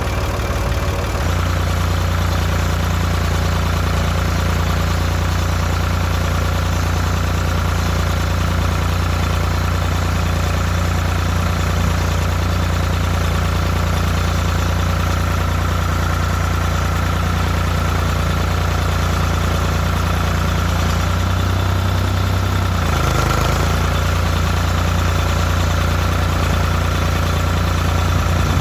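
Farm tractor engine running steadily while driving, heard from the seat; its note sags briefly about 23 seconds in.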